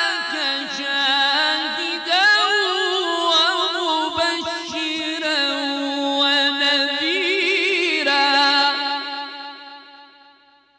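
A man's melodic mujawwad Quran recitation: one long held phrase with ornamented pitch runs, carried through a microphone and sound system. It ends about nine seconds in and the echo fades away.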